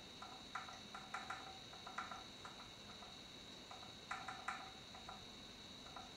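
Faint, irregular clicks of the buttons on an Xcortech airsoft chronograph being pressed as the BB-weight setting is changed, about seven soft presses, a quick pair near the start of the second second and another pair a little past four seconds.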